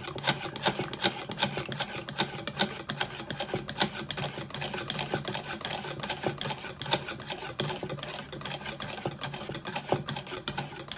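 Wire balloon whisk beating egg yolks and sunflower oil into mayonnaise in a plastic bowl: rapid, rhythmic clicking and scraping as the wires strike the bowl's sides.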